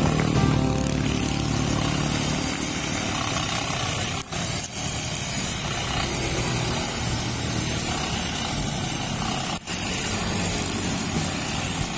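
Backpack brush cutter's small four-stroke engine running steadily at cutting speed while its nylon-line head cuts grass. The sound drops out briefly twice.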